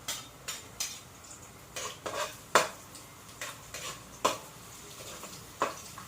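A spatula knocking and scraping against a frying pan at irregular intervals while stirring garlic and onion in hot oil, with a light sizzle underneath. The loudest knock comes about two and a half seconds in.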